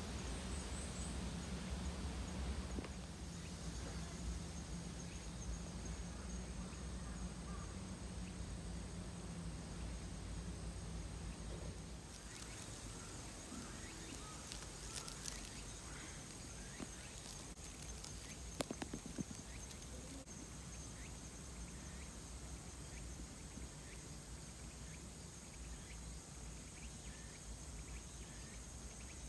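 Insects trilling steadily at a high pitch, over a low hum that stops about twelve seconds in. A few short clicks come a little past the middle.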